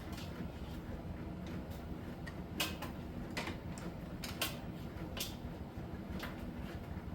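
Miele T1 heat-pump tumble dryer running in the steam saturation phase of its Soft Steam cycle: a steady low machine hum with scattered light clicks and ticks, two louder ones about two and a half and four and a half seconds in.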